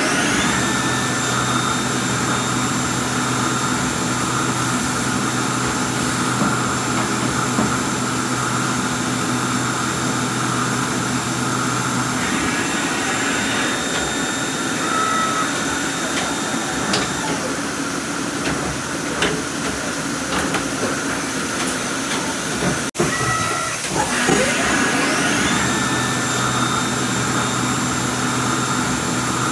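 Mazak Integrex 200-4S CNC mill-turn machine running. A spindle spins up with a rising whine and holds a steady high whine, which cuts out a little past halfway, then spins up again near the end. Throughout there is a steady hiss of machine noise, with one sharp click about two-thirds of the way through.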